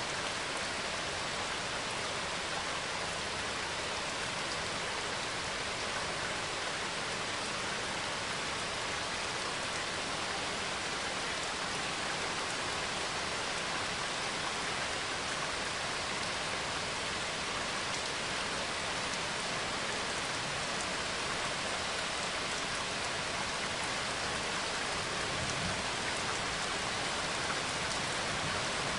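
Recorded rain falling steadily, an even hiss of drops that holds the same level throughout.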